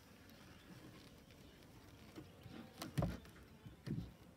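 Faint buzzing of honeybees from an opened hive, with a few knocks and scrapes of a metal hive tool prying wooden frames loose. The loudest knock comes about three seconds in, with another near the end.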